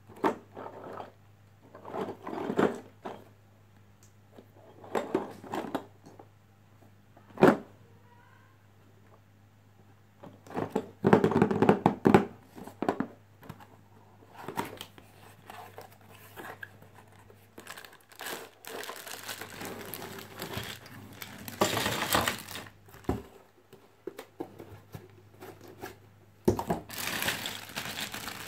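Cardboard toy box being handled and opened: irregular rustling, scraping and knocks, with one sharp tap about a third of the way in. Near the end a plastic bag of plastic toy pieces crinkles steadily as it is handled.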